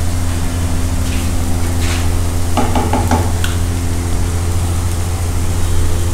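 Dosa batter sizzling on a hot griddle as it is ladled and spread into a round, over a steady low hum. A brief clatter comes a little past the middle.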